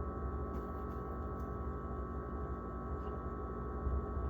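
Steady electrical hum with a few fixed high and low tones, and a couple of faint light clicks.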